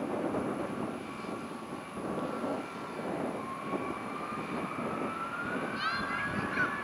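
Jet airliner engines running with a steady rushing noise, their whine rising in pitch from about three seconds in as they spool up.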